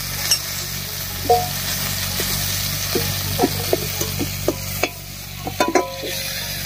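Prawns sizzling in hot mustard oil in a metal kadai while a metal spatula scrapes and taps against the pan, lifting them out. There are scattered clicks and clinks, a few of which ring briefly.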